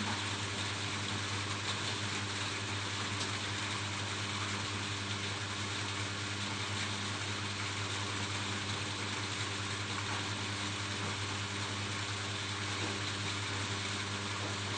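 Rain falling steadily on a roof: an even, unbroken hiss, with a steady low hum beneath it.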